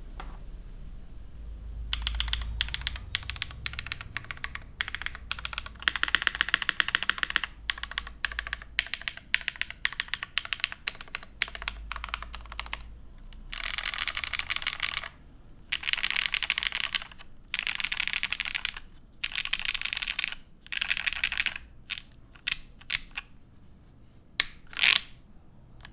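Typing on a jjw Cloudline TKL mechanical keyboard with lubed Black Cherry Pie linear switches, an aluminium plate and GMK keycaps. After a short pause the keys go down in quick runs of clicky strokes, then in separate bursts of rapid typing a second or so long, ending with a few single keystrokes and one louder stroke.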